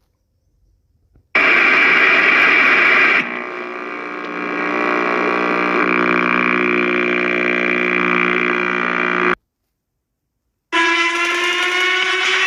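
Electronic emergency-alert alarm sounds: after about a second of silence, a loud harsh burst of noise and tones, then a steady buzzing tone held for about six seconds, a second of silence, and a new tone that slowly rises in pitch near the end.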